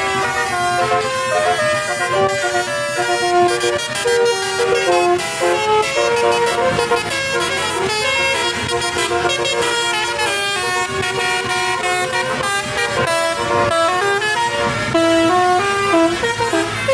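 Indonesian bus 'telolet' horns, multi-tone air horns playing quick tunes of short notes that keep stepping up and down in pitch.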